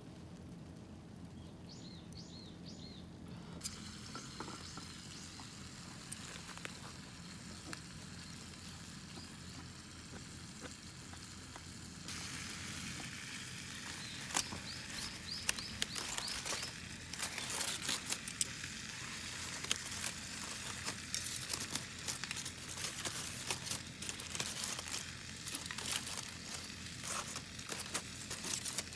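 Bamboo shoots sizzling as they cook over a crackling wood fire. From about twelve seconds in it grows louder, with frequent sharp pops and snaps.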